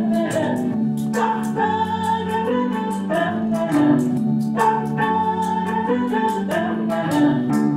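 Live band music: voices holding notes in harmony over electric guitar and bass, with a steady beat.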